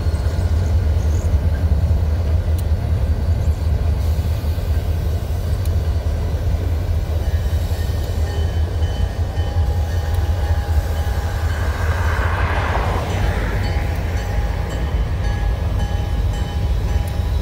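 Two EMD SD40-series diesel locomotives, an SD40-2 and an SD40, pulling slowly past with a steady low engine rumble, followed by loaded log flatcars rolling by on the rails.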